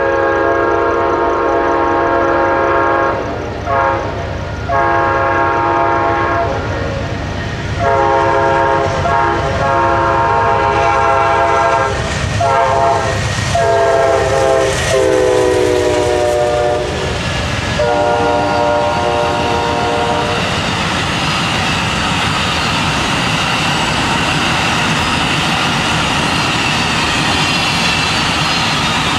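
Amtrak Auto Train's diesel locomotive sounding its horn in a series of loud blasts as it comes up and passes, the chord dropping in pitch as it goes by, with one last blast near the middle. After that comes the steady rumble and rail noise of the bilevel and autorack cars rolling past.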